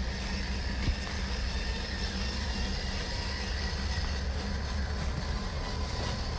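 Axial SCX10 III RC crawler's small electric motor and gear drive running steadily: a low drone with a faint whine.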